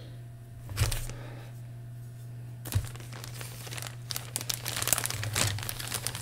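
Plastic model-kit sprues being handled, with two light knocks as a sprue is set down on the cutting mat. From about three seconds in, a clear plastic bag crinkles.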